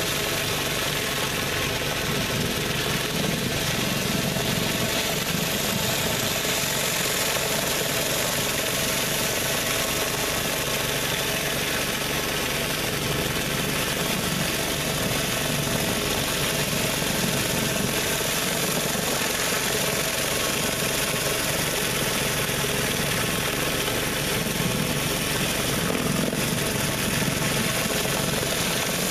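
A pressure washer's engine running steadily, with the spraying hiss of a Mi-T-M 20-inch surface cleaner being pushed over wet concrete.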